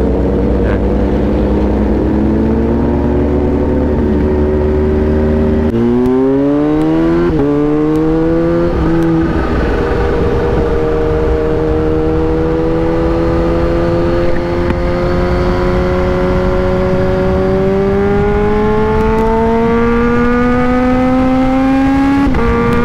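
Kawasaki Z H2's supercharged inline-four heard from the rider's seat, pulling steadily at first. About six seconds in the throttle opens and the pitch climbs, dipping at quick upshifts around seven and nine seconds in. It then rises slowly for a long stretch until another upshift near the end.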